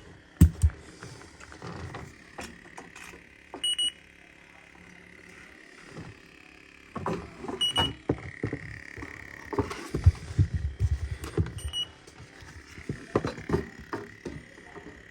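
Electronic refrigerant leak detector giving a short high beep about every four seconds, slow and even, with no rapid leak alarm. Scattered knocks and rustling come from handling around the air handler cabinet.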